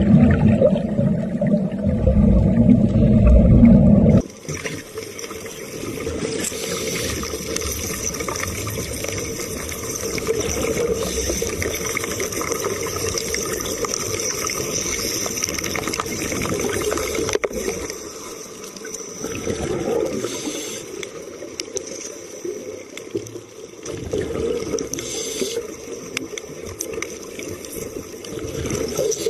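A loud low rumble that cuts off about four seconds in, then a steady crackling, bubbling underwater sound of wet arc welding.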